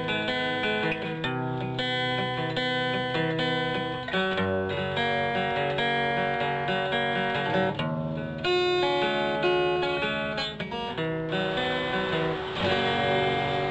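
Intro music of plucked guitar notes. Near the end a steady hiss comes in under it.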